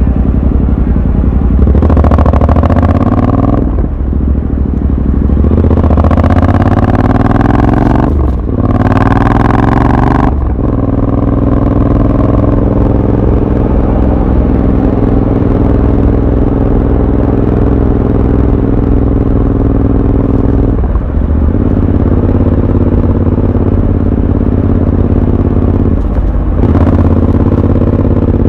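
Royal Enfield Continental GT 650's parallel-twin engine accelerating through the gears. Its pitch rises in three pulls, with a brief dip at each upshift. It then runs at a steady cruising note, broken twice by short dips.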